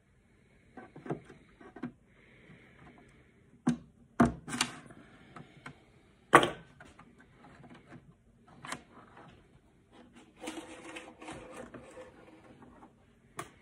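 Scattered light clicks, taps and knocks of hands working a wire out through a car spoiler's pieces, with a sharper knock about six seconds in and a stretch of rustling near the end.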